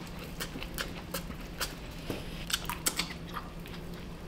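A person chewing and biting food with the mouth open: wet smacks and clicks at an irregular pace, over a faint low steady hum.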